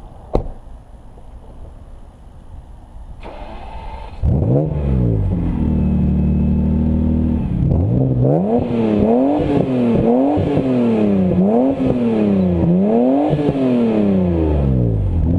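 BMW 850 CSi's 5.6-litre V12 starting about four seconds in, flaring and settling to a steady idle. It is then revved over and over, the pitch rising and falling about five times.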